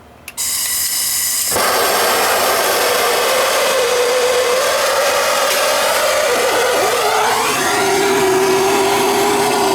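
Gas soldering torch: gas hisses on, then the torch lights about a second later and burns with a loud steady hiss and a humming tone that drops in pitch about three-quarters of the way through, heating a water pipe joint for soldering.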